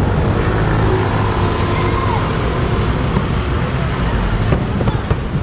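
Busy street at night: a steady low rumble of passing cars and scooters, with the murmur of a crowd of people talking as they walk along the road.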